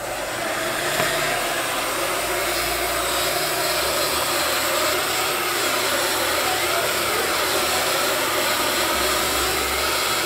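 Handheld hot-air blower switched on right at the start and running steadily with an even rushing hiss.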